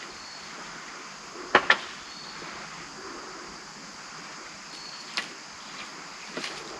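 Footsteps on loose slate stones: a few sharp clacks of rock on rock, the loudest a quick double one about a second and a half in, over a steady outdoor hiss. A faint high chirp repeats every two or three seconds.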